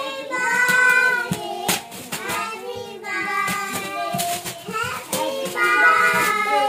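Music with a child's singing voice, a sung melody of held notes that runs on without a break. Now and then foil gift wrap crinkles under it as it is torn.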